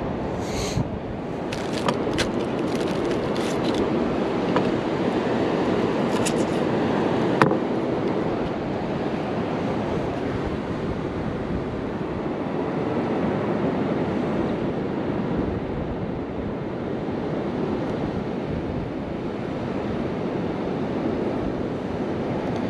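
Steady surf washing on the beach, mixed with wind on the microphone. A few small clicks come in the first several seconds.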